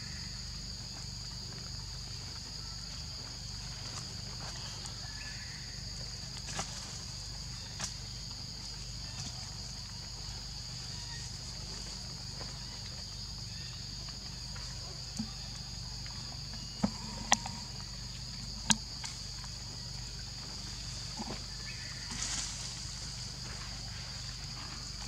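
Steady, high-pitched insect drone, with a few short sharp clicks, the loudest a quick cluster a little past halfway.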